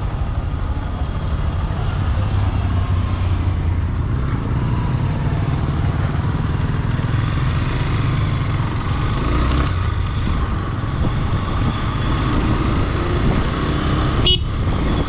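Motorcycle engine running steadily under way, heard from on the rider's own bike, with a short click near the end.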